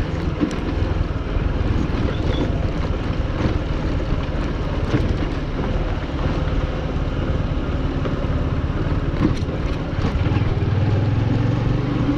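Wind buffeting the microphone during a bicycle ride, a steady low rumble with scattered small clicks and rattles.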